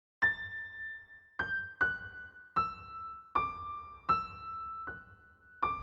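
Intro music: a slow melody of eight single high keyboard notes, each struck and left to fade, stepping mostly downward in pitch.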